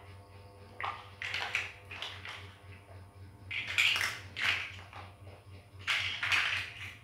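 Plastic toy building bricks clattering as a hand rummages through a loose pile of them, in three bursts of knocks and rattles.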